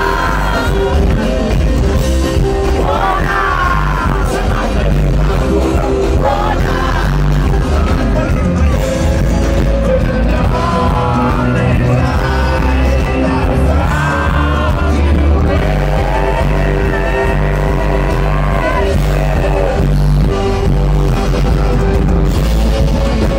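Live band playing amplified music with a lead singer: guitars, keyboard, drums and bass under a sung melody that rises and falls in long phrases.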